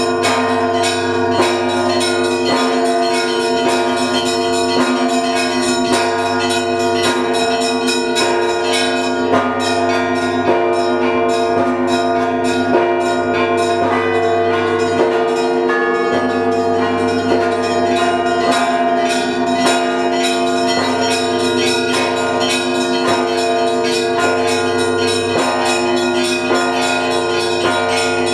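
Russian Orthodox church bells of the Trinity-Sergius Lavra ringing together: a fast, dense run of strokes from many bells over lingering ringing tones, with deeper bells struck every few seconds. It is the ringing that calls to the evening service.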